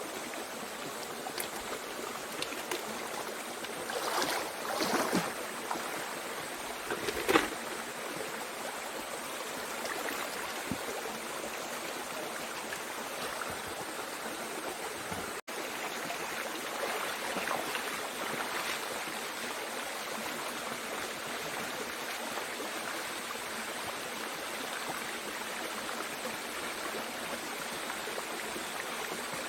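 Mountain stream running steadily, an even rush of flowing water. A few short, louder sounds break through about four to seven seconds in, the sharpest near seven seconds, and the sound cuts out for an instant about halfway through.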